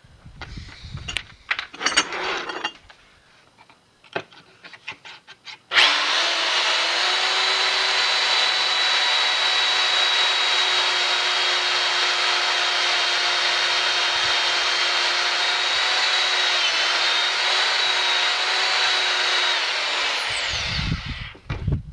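Power drill with a pocket-hole bit boring into wood through a pocket-hole jig: after a few knocks and clicks as the bit is set in the guide, the drill runs at a steady speed for about fourteen seconds, then winds down near the end.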